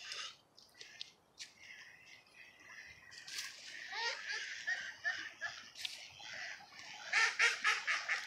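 Ducks quacking: scattered calls that build into a fast, loud run of quacks near the end.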